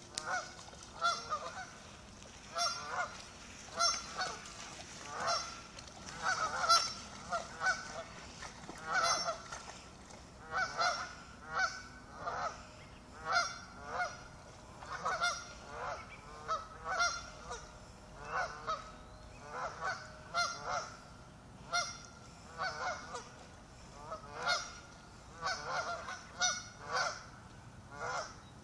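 A group of waterfowl giving short, repeated alarm calls, one or two a second without a break: warning calls as the birds swim away from a dog on the shore.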